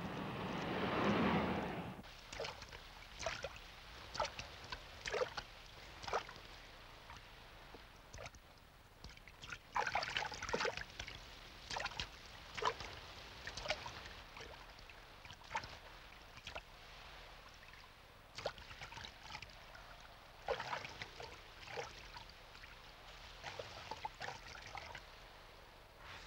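Film sound effect of short, wet, sloshing sounds, coming irregularly, singly or in quick clusters, after a louder noise that dies away about two seconds in.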